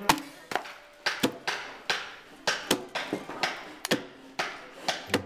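Axe chopping into the end of a log to hew out a tenon: a run of sharp chops, about two a second.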